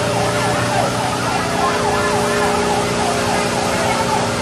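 Fire truck siren sounding a fast yelp, its pitch sweeping up and down a few times a second over a steady drone.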